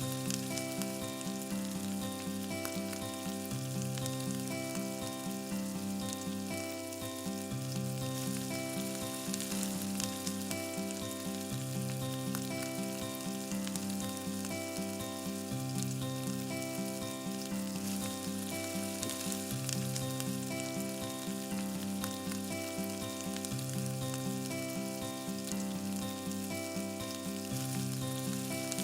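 Chicken sizzling and frying in a miniature clay pot, a steady crackling hiss, over background music whose low notes repeat in a pattern about every four seconds.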